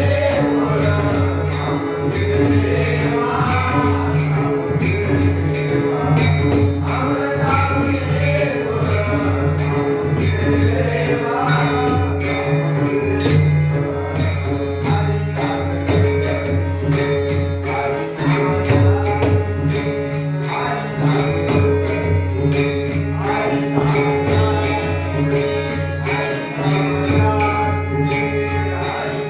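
Devotional bhajan music: jingling hand cymbals struck in a steady rhythm over a regular drum beat and a sustained drone, with a gliding melodic line.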